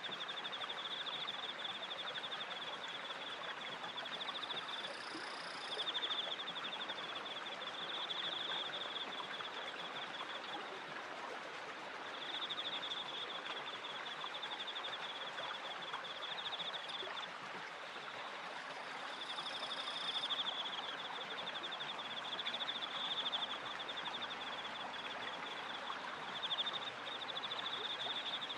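Water splashing and rushing off a turning wooden water wheel, with crickets trilling in long runs broken by short pauses. A brief higher chirp sounds twice.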